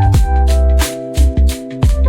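Background music with a steady drum beat, bass and held instrument notes.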